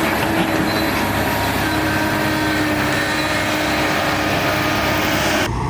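Heavy earthmoving machine's diesel engine running steadily under work, with a dense clattering noise over a steady engine hum. The sound changes abruptly near the end as the high hiss drops away.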